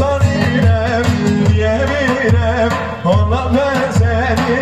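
Loud Middle Eastern folk dance music for a halay line dance: an ornamented, wavering melody with singing over a heavy, steady drum and bass beat.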